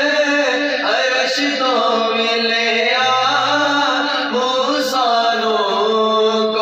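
Male voices chanting a devotional Islamic chant in a melodic style, with long held notes that slide up and down and several voices sounding together.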